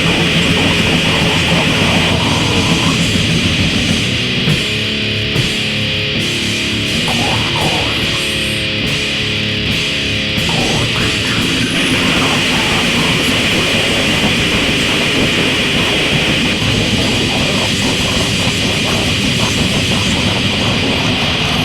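Death grind / noise grind music: loud, dense guitar-driven noise at a steady level.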